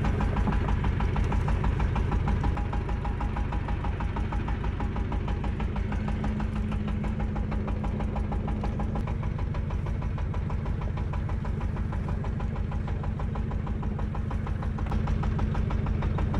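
A fishing boat's engine running steadily, a rapid even chugging over a low hum.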